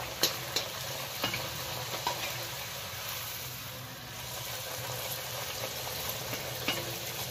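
Bhatura deep-frying in hot oil: a steady sizzle as the dough puffs up, with a few light clicks of a metal slotted spoon pressing on it.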